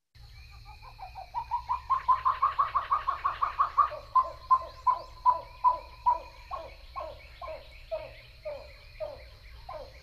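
Pied-billed grebe calling: a rapid run of coos that builds over the first few seconds, then slows into separate notes that each slide downward, sounding somewhat like laughter. A faint steady hum and high whine from the recording run underneath.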